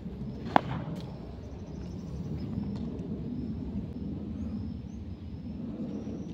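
Steady low outdoor rumble across an open dirt cricket ground, broken by one sharp knock about half a second in and a fainter click just after it.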